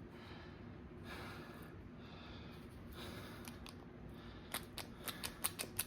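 Faint room tone, then a quick run of light, sharp clicks and taps in the second half, like small metal parts being handled.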